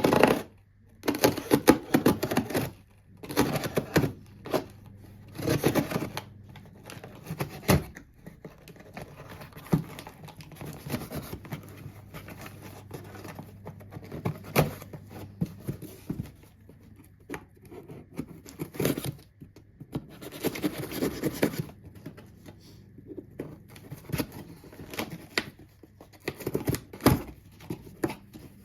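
Packaging being handled and torn open by hand: irregular bursts of rustling, crinkling and tearing, with short scratches and knocks between them.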